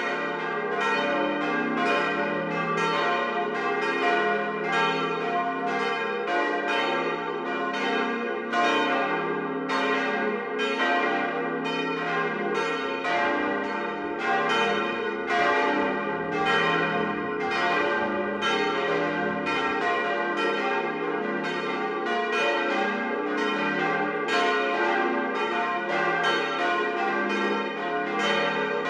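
Four steel church bells cast by the Böhler works in Kapfenberg, swinging together in a full peal. Their strikes overlap at about two a second and ring on into one another at an even level.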